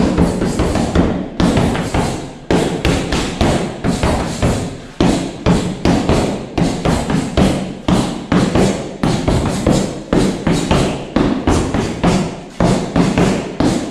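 Workout music with a steady drum beat, with punches thudding in quick succession on a hand-held strike shield.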